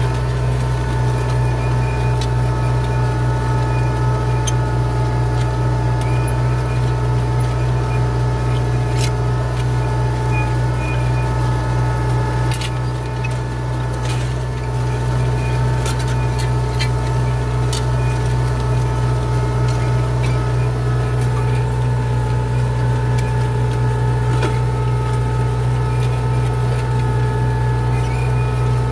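Tractor engine running steadily under load while pulling a disc harrow, with a constant low drone and occasional light clicks and rattles.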